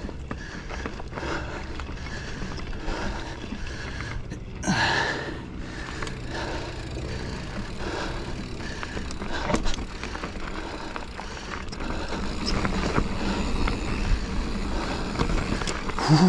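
Giant Fathom mountain bike ridden over a rough dirt trail with roots: steady tyre noise on the dirt with many rattles and clicks from the bike over bumps. A loud breath comes about five seconds in.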